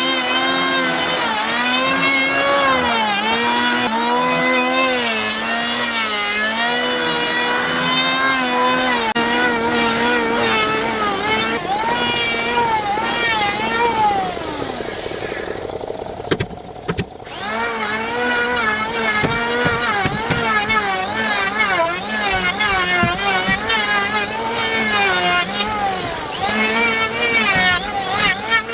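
Electric power tool working wood, its motor running with a pitch that sags and recovers every second or two as it bites into the cut, briefly falling away about two-thirds of the way through.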